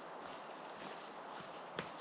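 Footsteps on a wet dirt forest path, about two steps a second, with one sharper step near the end, over a steady rushing noise.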